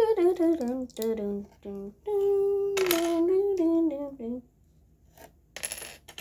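A child humming a wordless tune for about four seconds, the pitch wandering up and down, followed by a short clatter near the end.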